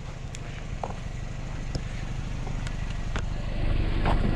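Van engine idling with a steady low rumble, growing louder near the end as the open van door is reached, with a few light footsteps or taps on concrete.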